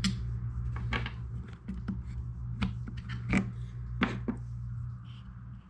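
Irregular clicks and knocks of hands and a small tool working the plastic chain guard off a Saker mini electric chainsaw, over a steady low hum.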